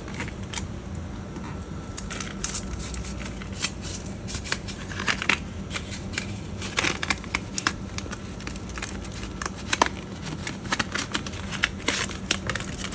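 Plastic retail packaging being handled and pried open by hand: irregular clicks, scrapes and crinkles.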